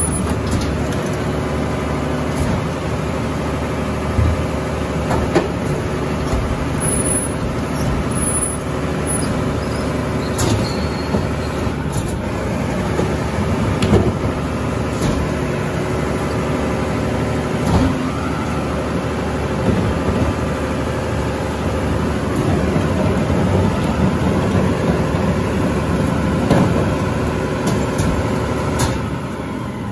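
Mack LR rear loader garbage truck running steadily, with scattered knocks and clanks over the engine note. The sound drops a little near the end.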